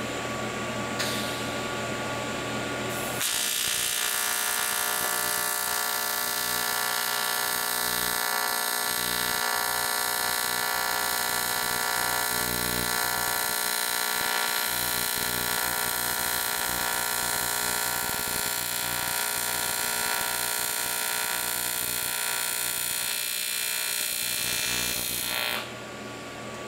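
TIG welding arc buzzing steadily while fusion-welding an aluminum lap joint without filler rod. A quieter hum comes first, the full arc buzz starts about three seconds in and runs for about twenty-two seconds, then it cuts off suddenly near the end.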